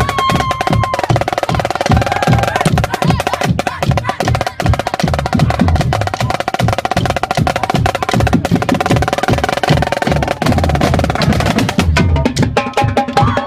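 Marching drumline playing a fast cadence: snare drums, multi-tenor drums and marching bass drums struck in dense, continuous patterns. The pattern thins out near the end.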